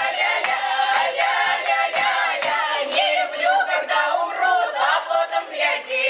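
Mixed choir of women's and men's voices singing a Russian comic folk song from the Saratov region unaccompanied, in a bright, open village style, over hand claps about twice a second.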